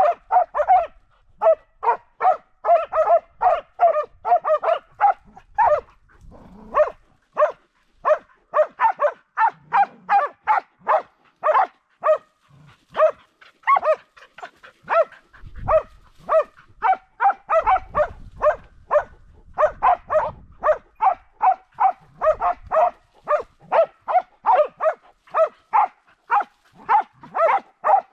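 Hunting dogs barking at a wild boar in thick cover, short sharp barks coming two or three a second without a break: the steady barking of dogs holding a boar at bay.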